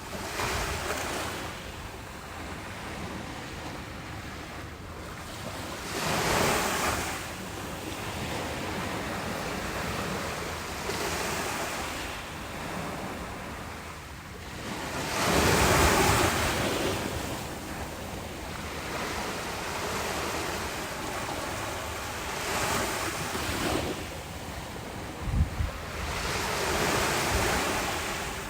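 Ocean surf breaking on a beach: a steady wash that swells about six times as waves come in, the loudest a little past halfway. A few brief low thumps of wind on the microphone come near the end.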